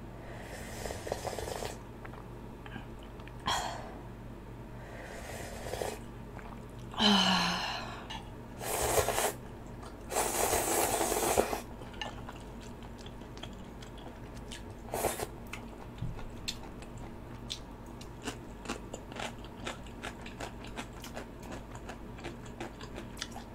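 Close-miked eating of Korean instant ramyun: a few loud slurps of noodles and broth in the first half, the longest lasting over a second. After that come steady soft chewing and small wet mouth clicks.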